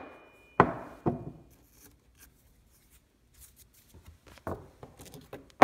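Hammer blows on a cracked Samsung smartphone lying on a concrete floor. A sharp crack comes about half a second in and a lighter hit just after. Then come scattered small taps and clicks, with another sharp strike at the very end.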